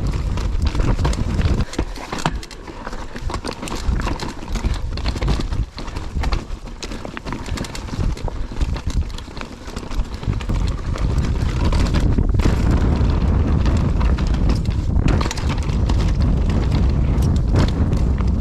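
Mountain bike riding down a rough, rocky trail: the tyres and frame clatter over rocks with many sharp knocks, over a steady low rumble of wind on the microphone. The clattering gets louder after about ten seconds.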